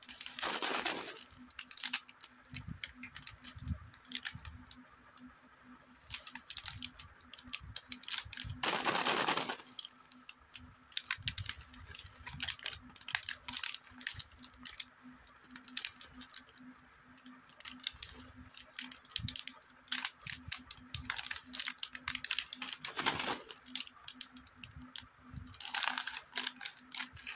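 Crinkling and rustling of a plastic candy packet being handled, with several louder crackling bursts as it is squeezed and turned, and scissors cutting into the packet near the end. A faint steady hum runs underneath.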